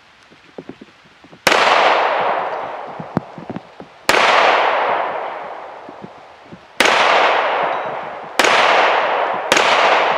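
Five pistol shots from an FN FNX-45 Tactical .45 ACP handgun, fired at uneven intervals with the last two close together. Each shot cracks sharply and rings out in a long echo that fades over a couple of seconds.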